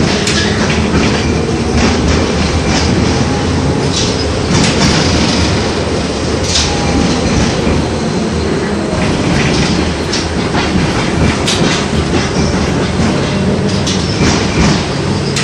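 LVS-86K articulated tram running along the track, heard from on board: a steady rumble of wheels and running gear with irregular clacks and rattles.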